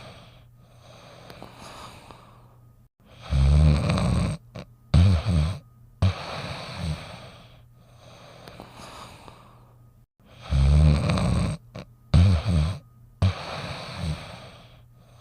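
A sleeping St. Bernard dog snoring. Each breath cycle is a loud, deep snore, then two short snorts and a long breathy exhale, and the cycle repeats about every seven seconds.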